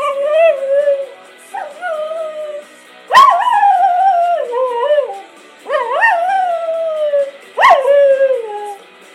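Cocker spaniel howling: five howls, each breaking in with a sharp upward yelp and then sliding down in pitch, the one about three seconds in the loudest.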